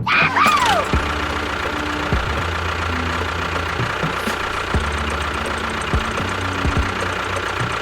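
A small engine running steadily with a knocking chug. A brief falling whistle-like tone sounds just after the start.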